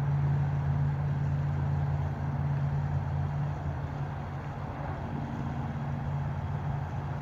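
Steady low motor hum with a constant pitch and no break.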